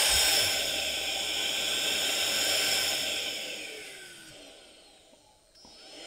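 Electric blower motor of a KACNON VC43 handheld vacuum/air duster running steadily in blower mode, blowing up a small water balloon on its nozzle. About three seconds in it winds down with a falling whine and stops, then starts up again just before the end.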